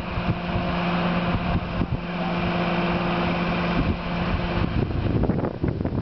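Mobile crane's engine running steadily with a low hum, which stops about three-quarters of the way in. Wind then buffets the microphone.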